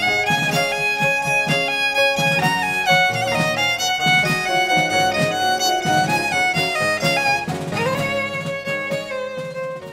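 Fiddle music: a lively fiddle tune over a steady beat, fading out near the end.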